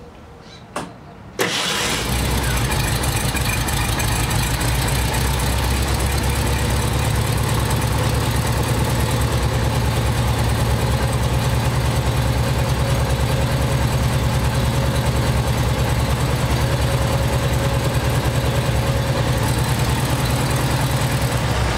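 Air-cooled 36-horsepower VW flat-four engine idling steadily with no load. It comes in abruptly about a second and a half in, after a couple of faint clicks.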